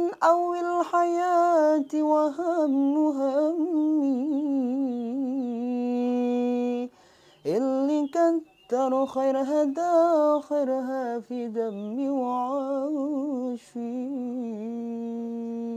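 A young man singing alone without accompaniment, in a wavering, ornamented melody with long held notes. There are short breath pauses about seven seconds in and again near the end.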